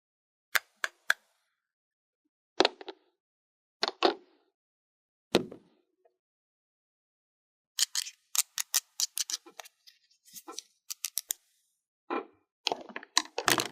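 Small plastic toy picnic pieces being handled and set down: separate sharp clicks and knocks, then a quick run of clicks about eight seconds in, and more knocks near the end.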